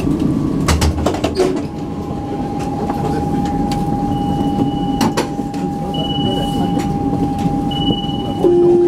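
Interior of an Alstom Citadis 302 tram standing at a stop: steady hum of the car's equipment with a few clicks and knocks. Three short high beeps sound in the second half, and a louder steady tone starts near the end.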